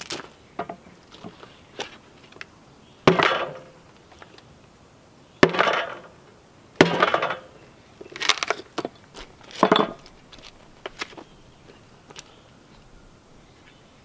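A hand tool striking a wooden block: about six sharp blows in the first ten seconds, each followed by a short crackle as wood splits off. After that there are only a few light knocks.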